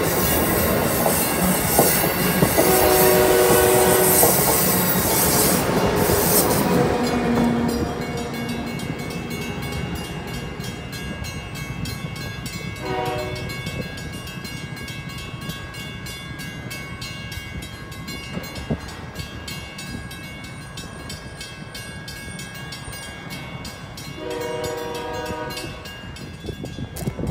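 Amtrak Acela train running past and away, its wheels on the rails loud for the first seven seconds and then fading into the distance. Its multi-tone horn sounds a blast of about a second and a half about three seconds in, a short toot about thirteen seconds in, and a fainter, longer blast near the end.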